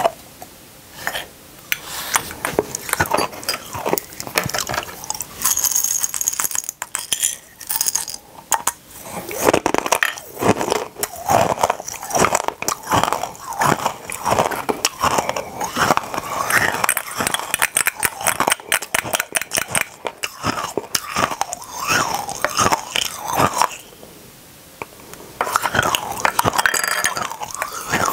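Small empty glass bottles clinking and tapping against each other and the table, mixed with crunching of tiny hard candies, in many quick clicks with a short quieter pause near the end.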